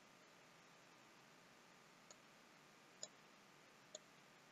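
Near silence: a faint steady hiss with three faint computer mouse clicks about a second apart in the second half.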